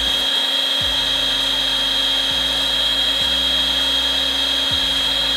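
Cordless heat gun running steadily, its fan blowing hot air with a high whine over an even hiss, shrinking heat-shrink tubing onto a wire.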